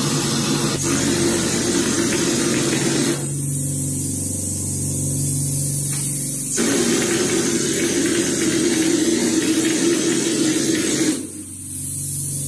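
Pneumatic hopper texture gun spraying a test coat of wet concrete face mix onto a vertical panel: a hiss of compressed air for about the first three seconds, a pause, then hissing again from about six and a half seconds to about eleven. A steady low hum runs underneath.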